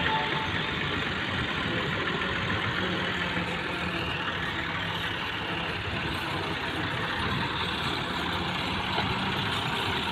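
Massey Ferguson 260 tractor's three-cylinder diesel engine running steadily as it hauls a trolley loaded with soil.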